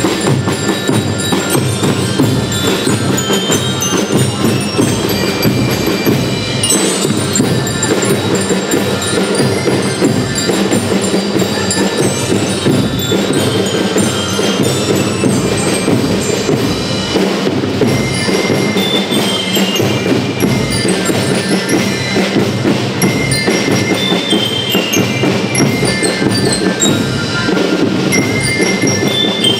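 School rhythm band playing: bell lyres ring out a melody of short notes stepping up and down over constant snare and bass drumming.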